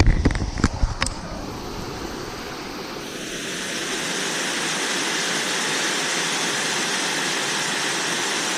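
Steady rush of water flowing through a drain, after a few sharp knocks of handling in the first second.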